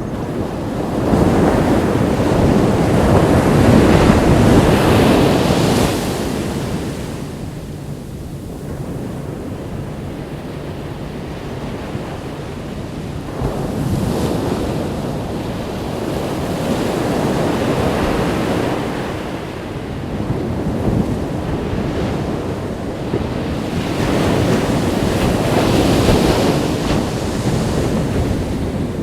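Ocean waves breaking and washing up a sandy beach, the surf rising and falling in surges: the biggest swell comes about a second in, followed by three smaller ones.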